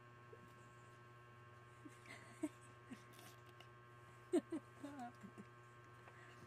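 Steady low electrical hum, with a few brief, soft vocal sounds with sliding pitch about two and a half seconds in and again around four and a half seconds in.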